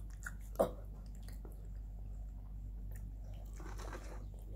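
Soft chewing and wet mouth sounds from eating a chocolate-glazed donut, with one sharp click about half a second in, over a steady low hum.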